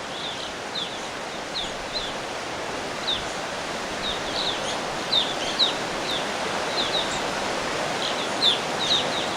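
A flock of evening grosbeaks calling: many short, high chirps that slide downward, scattered and sometimes several together, over a steady rushing background.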